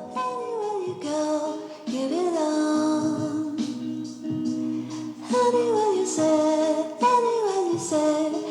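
Music with a woman singing a gliding, held melody over instrumental accompaniment.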